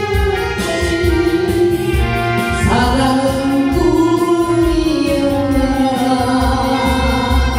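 A woman singing a Korean trot song in long, gliding held notes over instrumental accompaniment with a pulsing bass beat.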